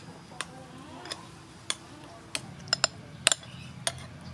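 Metal spoon clinking against a ceramic bowl while stirring and mashing soaked tamarind pulp in water: irregular light clinks, several in quick succession in the second half.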